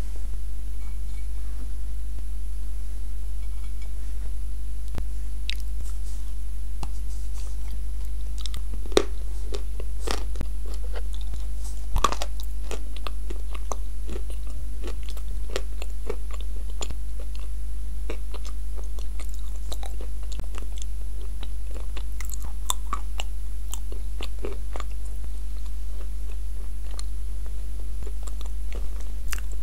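Close-miked chewing and crunching of dry edible clay chunks dipped in a soft clay paste: scattered crisp crackles and small bites, the sharpest few about a third of the way in. A steady low electrical hum runs underneath.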